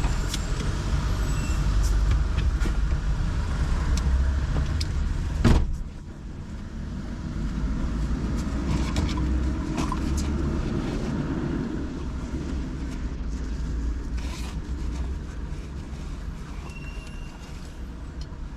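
Car driving through city traffic: a steady low rumble of engine and tyres with other vehicles passing. A sharp knock comes about five and a half seconds in, after which the rumble drops, then swells again for a few seconds as something passes, with a short hiss near the middle of the second half.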